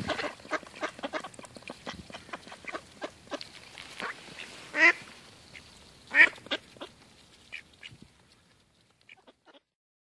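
Mallards quacking: a run of short quacks, then two loud quacks around five and six seconds in and a few fainter ones before the sound fades out.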